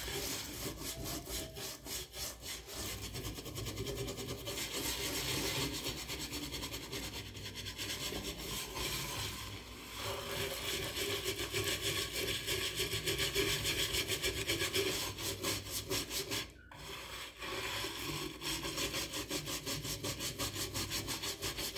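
Scrub brush scrubbing a Jade Cook pan coated in burnt-on residue and a foaming metal-cleaning acid, in rapid, rhythmic back-and-forth strokes, with a brief pause about three quarters of the way through.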